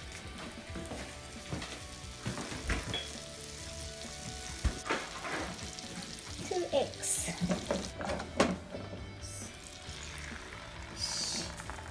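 Butter sizzling as it melts and foams in a hot nonstick frying pan, with a few sharp knocks. Near the end, beaten egg is poured into the hot butter and the sizzle flares up.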